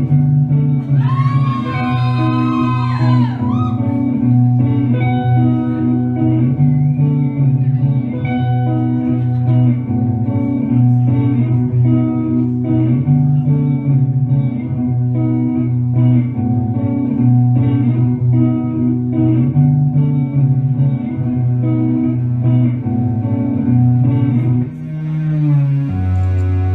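Live post-punk band music: a repeating, cyclical electric guitar figure over a steady bass line, with a high gliding melody line about a second in. Near the end the music drops briefly and the bass shifts to a lower note.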